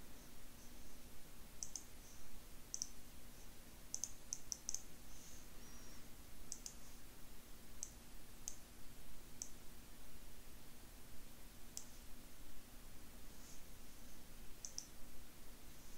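Computer mouse button clicking: a dozen or so short, sharp clicks at irregular intervals, some in quick pairs, over a faint steady hum.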